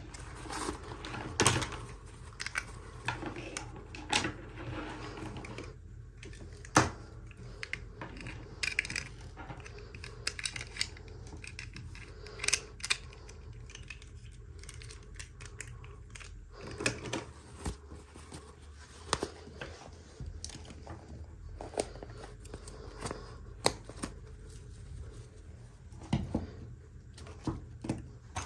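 Toy packaging and small plastic miniature pieces being handled and unwrapped: irregular clicks and taps with short bursts of rustling.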